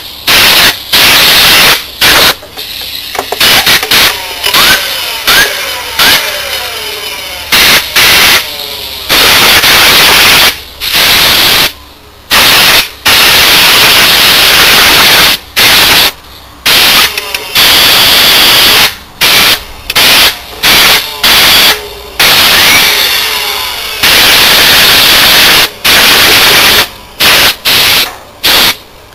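Compressed-air blow gun hissing in many short blasts, blowing dust out of a lamp ballast power supply. Twice, a centrifugal cooling blower spun by the air whirs with a rising pitch under the hiss.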